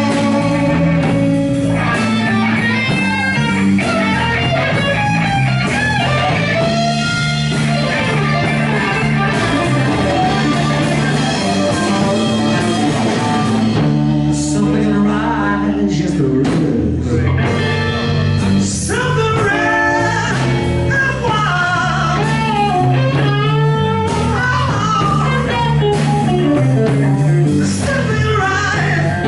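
Live rock band playing loudly: electric guitars over bass and drums, with a man singing.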